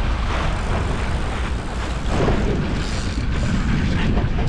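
Fishing boat's engine running under way, with a steady rush of wind and water noise.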